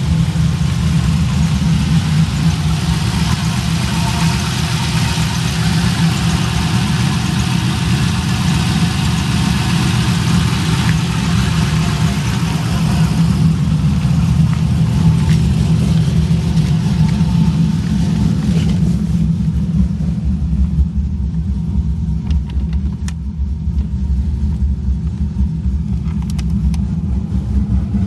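Cammed LS1 5.7-litre V8 with a Texas Speed 228R camshaft idling with a steady low rumble. About two-thirds of the way through the sound becomes muffled and loses its higher tones, as heard from inside the closed cabin.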